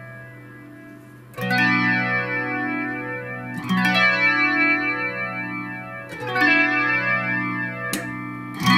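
Electric guitar chords played through an Electro-Harmonix Deluxe Electric Mistress flanger, newly working again on a replacement SAD1024A bucket-brigade delay chip. A fresh chord is struck every two to three seconds and left ringing, with a slow flanging sweep rising and falling through it.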